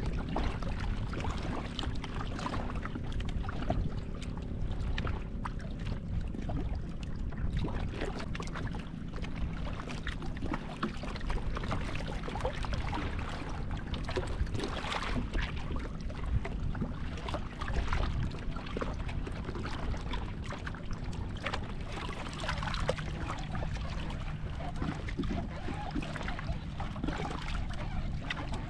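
Sea water lapping and sloshing against a small wooden outrigger boat, with wind on the microphone. A faint steady low hum sits under it through the first several seconds.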